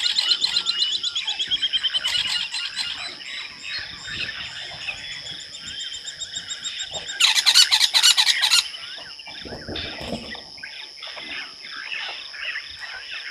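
Evening bush chorus: many birds chirping and calling over a steady high-pitched insect drone. About seven seconds in, a loud, fast rattling call lasts about a second and a half, then a short low rumble.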